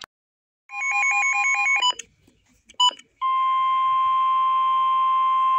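NOAA Weather Radio emergency alert coming over a weather radio. It opens with a warbling, chirping SAME digital header burst of two rapidly alternating tones, then a short blip. A little over three seconds in, the steady 1050 Hz warning alarm tone starts, signalling that a warning (here a flash flood warning) is about to be read.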